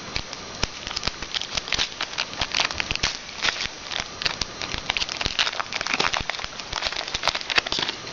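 Crinkling and crackling of a trading card pack's wrapper being torn open and handled, in quick irregular crackles.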